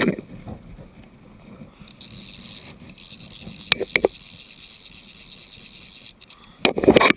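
Faint steady outdoor hiss with a couple of light clicks about four seconds in. Near the end comes loud, irregular rustling and rubbing close to a body-worn camera's microphone as the angler's arm and clothing move against it.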